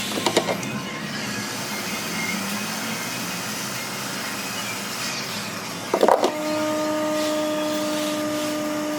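A small electric motor or blower on a repair bench, over a steady airy hiss. There are a few clicks at the start, and about six seconds in, after a short clatter, a steady electric hum starts up.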